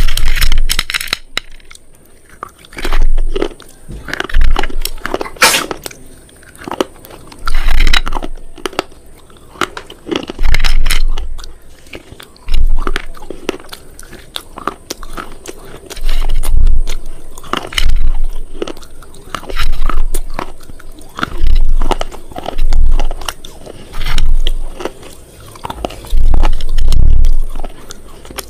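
Something brittle being crunched over and over: loud, crackly crunches with a low thump, roughly one every one to two seconds.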